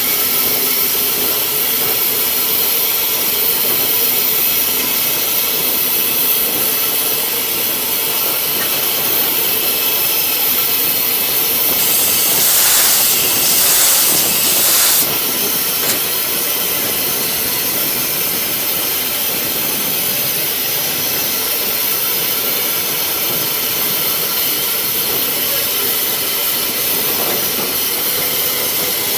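Steam locomotive (an 1897 Baldwin) hissing steadily. Near the middle a louder rush of steam lasts about three seconds and then cuts off suddenly.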